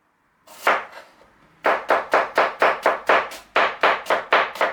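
Chef's knife chopping cabbage on a cutting board: a single stroke, then two quick runs of strikes at about four to five a second.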